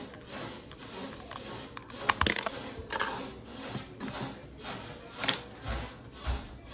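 Clicks and clatter from a small screwdriver working the battery-cover screw of a Furbling toy and from the toy being handled, loudest about two seconds in, over a steady ticking of about three beats a second.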